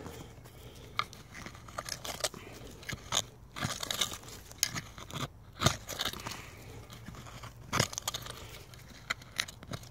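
Hand digging tool scraping and chopping into loose, root-filled soil: an irregular run of crunching strokes, the sharpest a little past halfway through and again about two seconds later.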